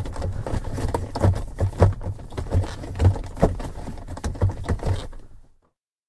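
Automatic gear shift lever of a 2002 Mercury Sable being worked through its positions: a quick, uneven series of mechanical clicks, clunks and scrapes, cutting off shortly before the end.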